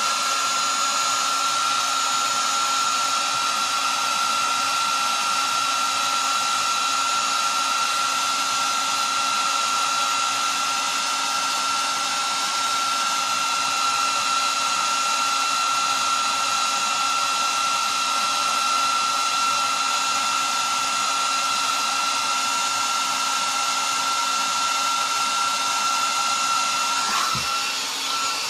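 Handheld hair dryer running steadily, a rush of air with a high motor whine, blowing hot air onto a fire alarm heat detector to trip it for a test. Near the end the whine dips and the sound drops briefly.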